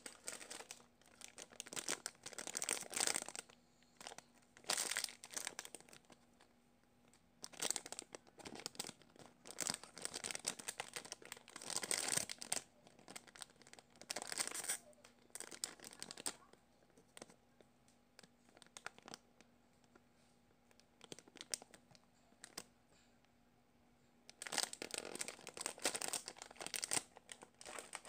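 Clear plastic packaging bag crinkling and tearing as it is worked off a squishy toy by hand, in several spells of rustling with a quieter stretch past the middle.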